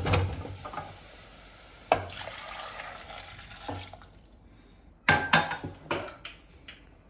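Baby potatoes clattering from a steel bowl into an aluminium pressure cooker, then water poured into the cooker from a plastic jug for about two seconds. A few sharp clicks and knocks follow near the end.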